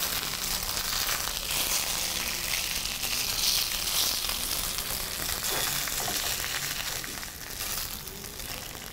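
Polenta slices sizzling as they pan-fry, with light scraping as they are turned with a wooden spatula and a fork. The sizzle eases off near the end.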